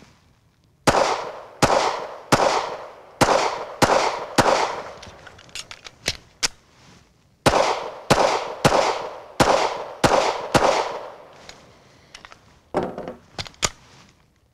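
Twelve shots from a Walther PDP red-dot pistol, fired in four quick strings of three shots about two-thirds of a second apart. Between the sixth and seventh shots there is a pause of about three seconds with a few faint clicks: a speed magazine change. Near the end come clicks and rattles of a magazine being dropped and reloaded.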